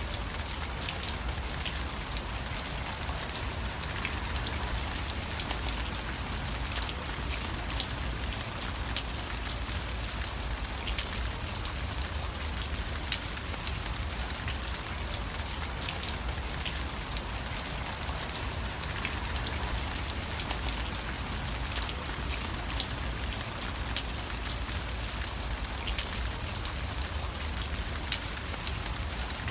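Steady rainfall, an even hiss of rain with many sharp drop ticks scattered through it and a low steady rumble underneath.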